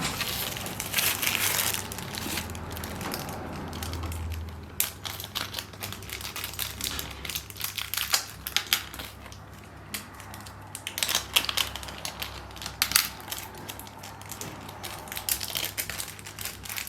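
Packaging crinkling and rustling as a parcel is unwrapped by hand, with many sharp, irregular crackles.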